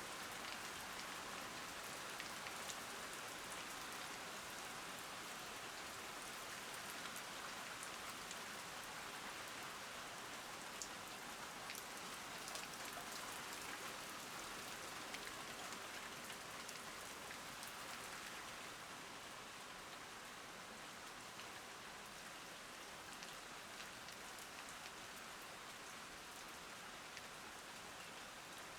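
Rain falling steadily, with scattered sharp drop ticks. It eases a little about two-thirds of the way through.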